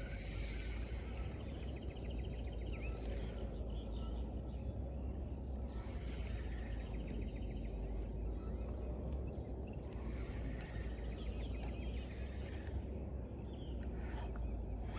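Outdoor ambience: a steady high insect buzz over a low steady rumble. A fast trilling call is heard twice, once early and once about ten seconds in.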